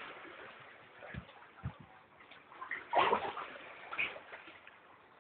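Water sloshing and splashing lightly, with a short splash about three seconds in and a smaller one about a second later.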